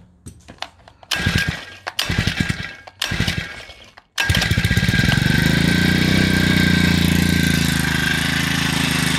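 Huasheng 144F 53cc four-stroke engine being pull-started: three short cranking bursts on the recoil starter, then it catches about four seconds in and settles into a steady, smooth idle.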